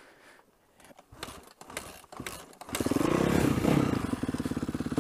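Dirt bike engine quiet at first with a few faint knocks, then about two and a half seconds in it comes up loud under throttle, the pitch rising and falling as the motorcycle pulls away.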